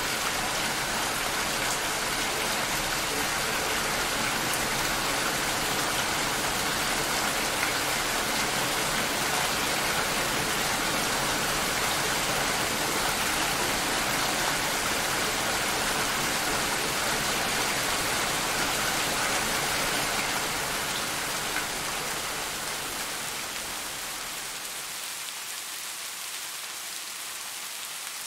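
Steady rain, a dense even hiss of falling drops, growing somewhat quieter and thinner over the last several seconds.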